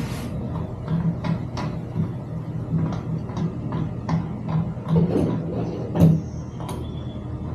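Irregular light clicks and knocks from tools and bicycle parts being handled during assembly, with the loudest knock about six seconds in, over a steady low hum.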